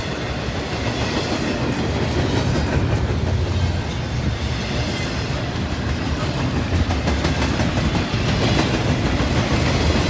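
Norfolk Southern freight train's cars rolling past, a steady rumble with wheels clacking over the rail joints.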